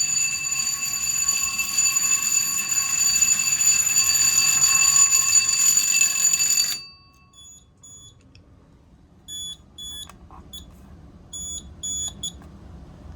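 Fire alarm panel's trouble bell ringing steadily, set off by a pull station wired as a supervisory zone; it cuts off suddenly about seven seconds in. After that come several short, high electronic beeps in pairs and threes.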